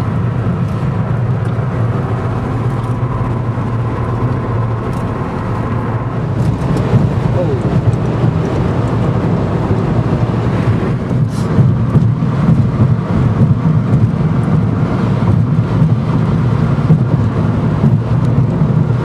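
Car cabin noise while driving: a steady low drone of engine and tyres on the road, getting louder and rougher about seven seconds in.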